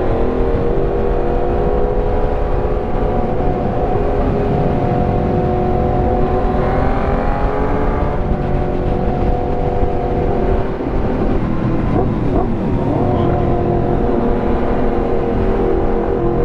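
Yamaha MT sport motorcycle engine running at steady cruising revs while riding, with heavy wind rumble. About twelve seconds in, the revs dip and then climb back up.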